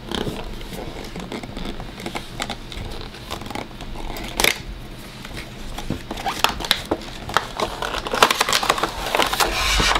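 Cardboard and clear plastic packaging of an action-figure box being handled and opened: scattered scrapes, clicks and crinkles that grow busier over the last few seconds.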